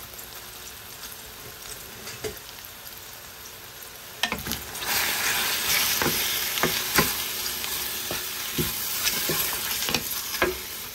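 Raw chicken strips sizzling in olive oil in a stainless steel pan. About four seconds in the sizzle gets louder as a wooden spoon stirs the chicken, with repeated knocks and scrapes against the pan.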